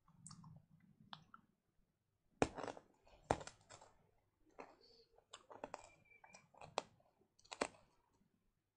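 A string of irregular sharp clicks and knocks, about a dozen, the loudest two about two and a half and three and a half seconds in.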